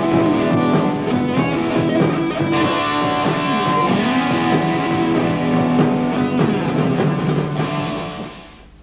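Rock music with electric guitar and drums, fading out near the end.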